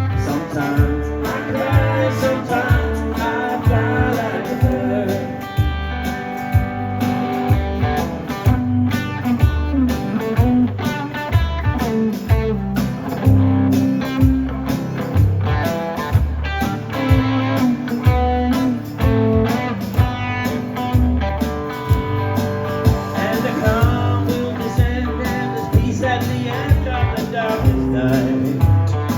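Live band playing an instrumental passage: guitar lines over bass and a steady drum beat.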